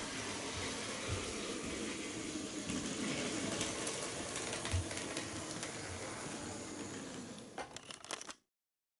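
HO-scale KATO EF81 electric locomotive model running on its track: a steady whir of motor and wheels on the rails, a little louder as it passes close about four seconds in. Near the end comes a quick run of clicks, then the sound cuts off abruptly.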